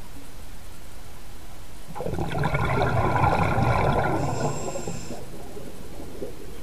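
Scuba diver exhaling through the regulator underwater: a gurgling rush of bubbles starting about two seconds in and lasting about three seconds, over a steady underwater hiss.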